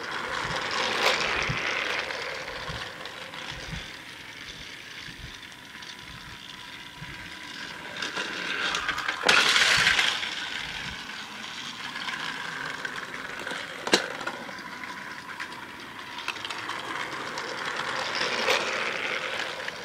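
Battery-powered Trackmaster toy locomotive running, a steady motor whir with clattering and sharp clicks as it and its trucks roll over plastic track. The sound swells a few times and drops back.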